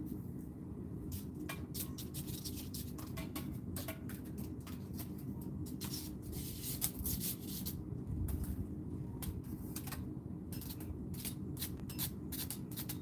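Outdoor garden ambience: a steady low rumble with many faint, irregular ticks and crackles scattered through it.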